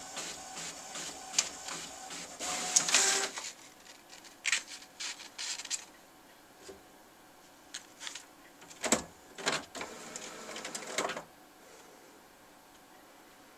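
HP inkjet all-in-one printer printing: rhythmic machine passes for the first few seconds, then a few separate bursts of mechanical noise, stopping about eleven seconds in.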